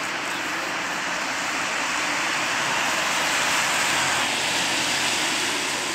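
A vehicle passing on a wet street: a steady hiss of tyres on wet tarmac that swells to a peak about four seconds in and then eases off, with a faint low engine hum beneath.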